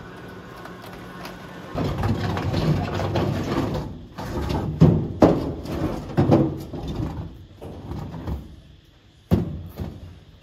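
A machine hums steadily, then a loud rough noise runs for about two seconds, followed by a series of heavy knocks and thuds, the loudest about five seconds in and another near the end.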